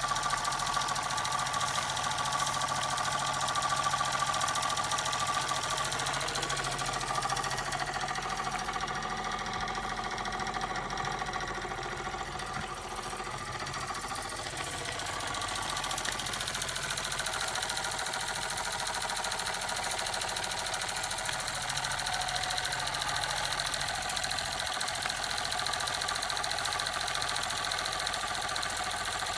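Antique Buckman Twin twin-cylinder toy steam engine of about 1889 running steadily under steam, with a rapid, even mechanical rhythm from its cylinders and flywheels.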